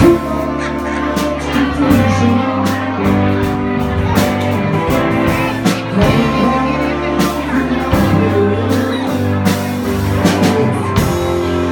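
Live band playing a rock-blues tune: a drum beat with electric bass and guitar, and a lead part coming through the vocal microphone.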